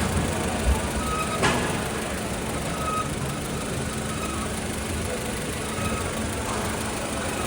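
Honda Civic engine idling steadily, with a faint high whine that comes and goes and a few light knocks. The odd noise is what the mechanic traces to a failing water pump.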